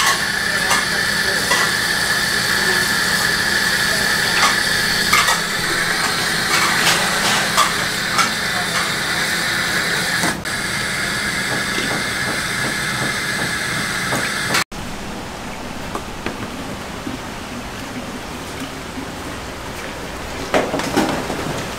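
Tap water running steadily from a spray faucet into a sink while raw chickens are rinsed, with small clicks and knocks of handling. About two-thirds through it cuts off suddenly to a quieter kitchen background with a few knocks near the end.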